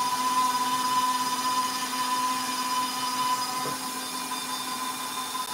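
Electric stand mixer running at high speed, its flat beater whipping thick chocolate buttercream in a stainless steel bowl; a steady motor whine.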